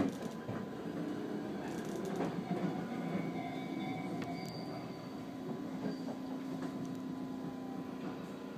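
JR 213 series electric train running, heard from inside the carriage: steady running noise with a few sharp clicks of the wheels over rail joints in the first couple of seconds, and a steady low hum that comes in about halfway through.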